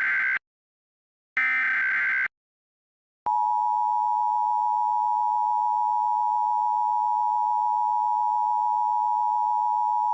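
Emergency Alert System SAME header: the tail of one burst of digital data tones and then a second full burst, each about a second long. After a gap of about a second, the EAS attention signal starts about three seconds in, a steady two-tone 853/960 Hz drone.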